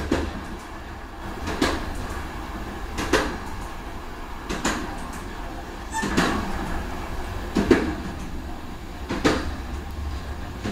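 Train running on jointed track: a steady low rumble with a sharp clack about every one and a half seconds as the wheels cross the rail joints.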